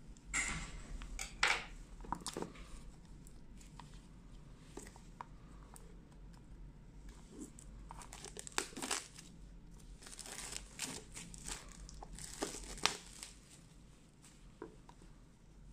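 Clear plastic shrink-wrap on a phone box being slit with a knife and peeled off, crinkling and tearing in irregular bursts, loudest in a cluster near the start and another a few seconds before the end.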